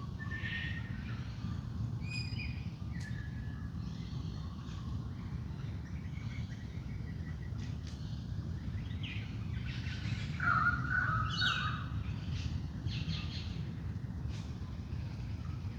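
Wild birds calling in an early-morning dawn chorus: scattered short chirps and calls, busiest and loudest about two-thirds of the way through, over a steady low rumble.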